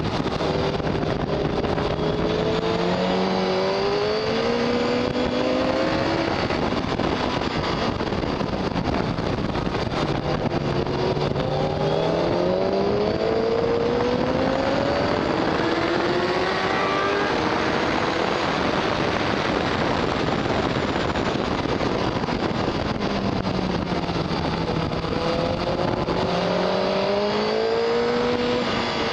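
Honda CBR1000RR Fireblade's inline-four engine heard onboard at speed, its pitch climbing and dropping back at each upshift as it accelerates through the gears, three runs in all, with heavy wind rush in between.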